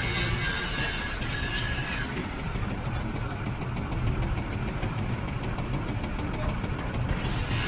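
An engine running steadily with a low rumble, with a high hiss that drops away about two seconds in.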